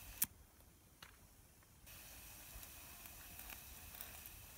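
Knife prying the charred, crusty skin off a fire-roasted breadfruit: one sharp crack about a quarter second in, then faint crackles and small ticks over a steady hiss.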